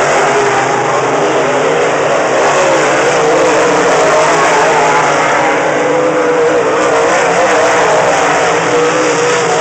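Dirt-track modified race cars running at speed on the track. Their engines make a loud, steady sound, with several pitches overlapping and wavering up and down as they work through the turns.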